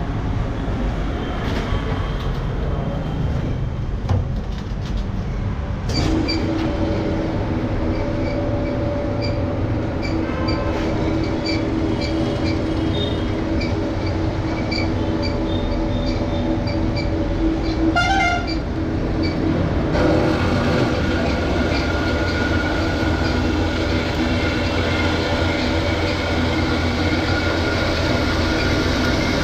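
Steady low mechanical rumble of a moving vehicle, with a short horn-like pulsing tone about two-thirds of the way through.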